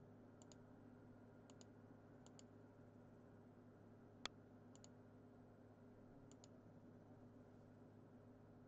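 Near silence over a low steady hum, broken by faint computer mouse clicks, mostly in quick pairs, about five times, and one sharper single click about four seconds in.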